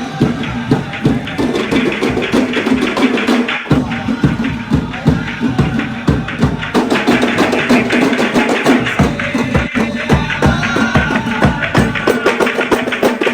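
Procession music: hand-beaten frame drums (kompang) playing a rapid, steady interlocking rhythm, with a group of voices chanting along.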